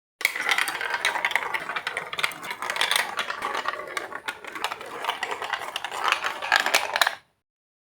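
Marbles rolling and clattering down a Lego Duplo plastic block track: a dense rattle of clicks that starts suddenly and cuts off about seven seconds in.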